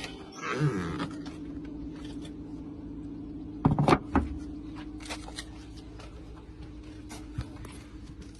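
A steady low mechanical hum, with a few light knocks and a short cluster of loud clunks about four seconds in.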